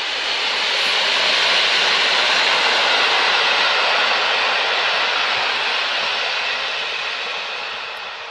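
EP07 electric locomotive and its passenger coaches passing, a rushing noise of wheels on rails that swells over the first couple of seconds, holds, then fades as the train moves away.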